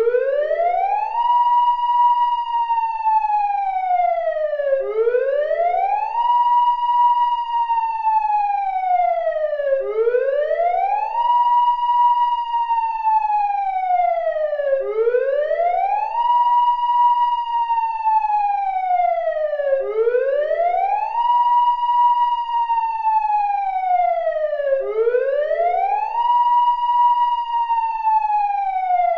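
Siren wailing in a slow, even rise and fall, climbing quickly and sinking over a few seconds, repeating about every five seconds without a break.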